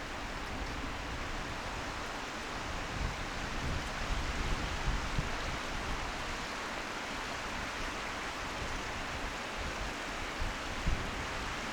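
Wind blowing in a steady rush, with irregular low rumbles of gusts buffeting the microphone.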